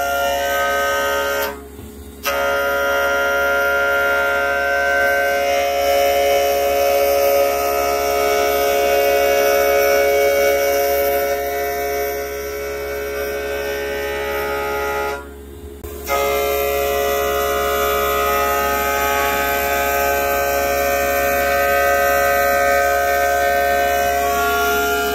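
CNC vertical machining centre milling a steel V-punch: the spindle and end mill give a steady whine made of several held tones over a low hum, during a finishing cut. The sound drops away briefly twice, about 2 s and 15 s in.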